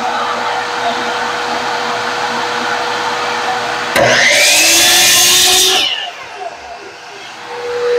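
A shop vacuum runs steadily, then about halfway through a chop saw starts up and cuts through a stone-core vinyl flooring plank for about two seconds, much louder, before it is released and winds down.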